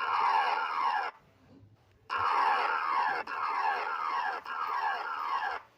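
Emergency alert tone: a harsh pitched sound that sweeps downward over and over, about one sweep a second, with a pause of about a second after the first burst.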